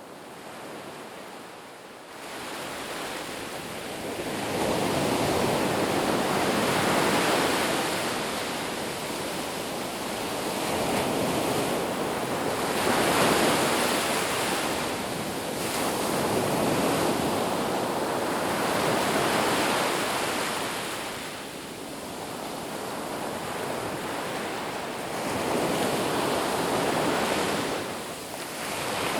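Sea surf breaking and washing in, swelling and falling back in long surges every few seconds.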